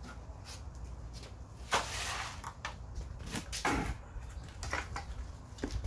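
Wet concrete mix being tipped out of a plastic bucket into a plastic 45-pound barbell-plate mold: several separate scrapes and soft thuds as lumps of concrete slide out and land, the loudest about two seconds in.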